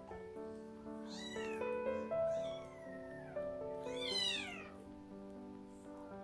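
A young kitten mewing, two high-pitched mews that rise and fall, about a second in and about four seconds in, over background music.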